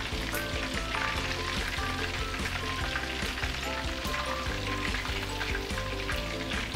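Chicken pieces deep-frying in a wok of hot oil: a steady crackling sizzle with small pops.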